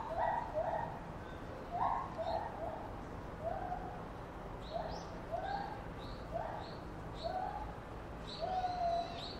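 Chimpanzee giving a series of short hooting calls, about ten in a row, spaced a half second to a second apart, some dropping slightly in pitch.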